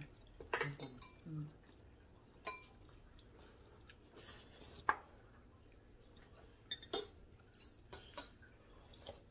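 Metal chopsticks and spoons clinking against ceramic bowls and plates while eating: scattered light clicks, the sharpest about five seconds in and a cluster near the end.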